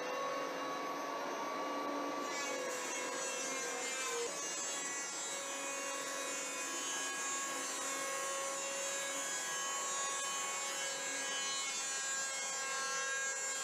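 Electric hand power planer running steadily, its motor whining as it planes the corners off a square wooden mast to make an octagon. The pitch shifts slightly about four seconds in.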